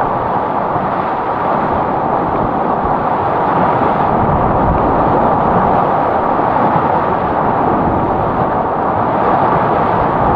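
Whitewater rapids rushing loudly and steadily around a whitewater kayak running a rapid, a dense unbroken roar of churning water.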